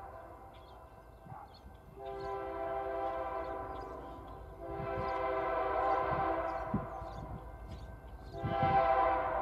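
Diesel locomotive air horn of an approaching train, not yet in view, sounding a grade-crossing pattern: two long blasts and a short one, with the next long blast about to follow. It grows louder and brighter as the train nears.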